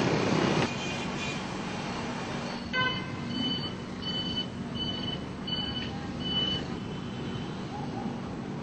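City street traffic noise. About three seconds in, just after a short click, an electronic beeper sounds six short high beeps at a steady pace of about one and a half a second.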